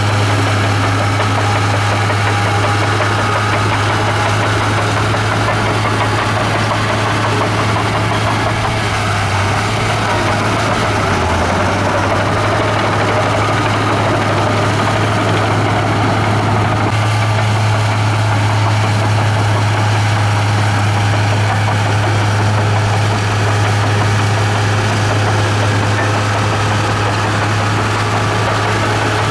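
Komatsu bulldozer's diesel engine running with a steady deep drone, which sags briefly about ten seconds in.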